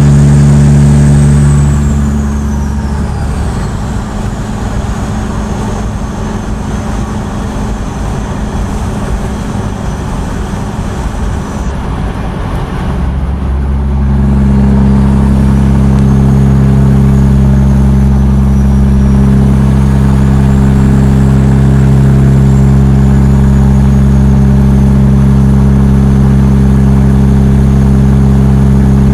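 Steady drone of a vehicle being towed: a deep hum with a thin high whine above it. About two seconds in it falls to a quieter, rougher rumble. About fourteen seconds in it comes back to the loud, steady hum.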